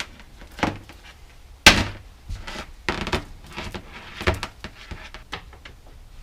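A series of irregular knocks and clatters from bicycle parts and tools being handled and set down, about six in all, the loudest a little under two seconds in.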